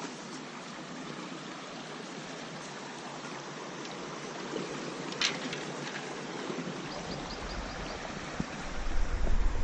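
Floodwater rushing steadily through sluice gates. There is one sharp click about five seconds in, and a low rumble builds near the end.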